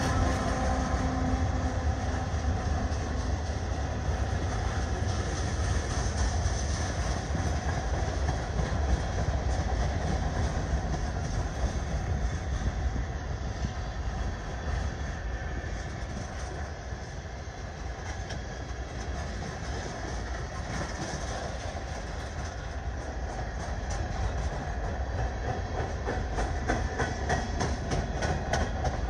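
A freight train rolling past: a steady rumble of steel wheels on the rails with clickety-clack over the rail joints, the ticks coming thicker near the end. A locomotive's engine tones fade out over the first few seconds as it moves away.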